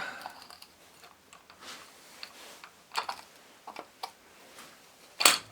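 Scattered light clicks and taps of tools and small parts being handled while a starter motor is taken apart, the loudest a sharp double click near the end.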